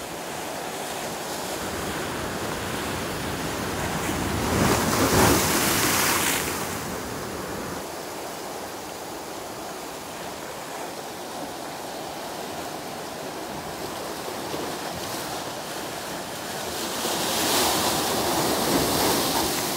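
Ocean surf breaking against a rocky shoreline, a steady wash with two louder wave crashes, about five seconds in and again near the end.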